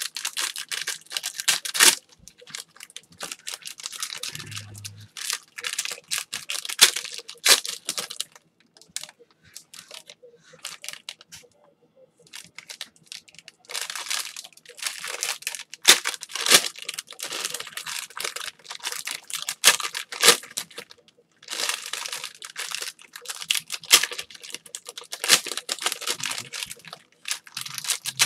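Foil trading-card pack wrappers being torn open and crinkled by hand, in repeated bursts of crackling with short pauses between them.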